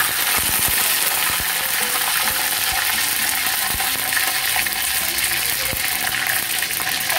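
Tadka of mustard seeds, fenugreek, dried red chillies and fresh curry leaves sizzling in hot oil in a small steel tempering pan. A steady hiss is broken by scattered pops and crackles.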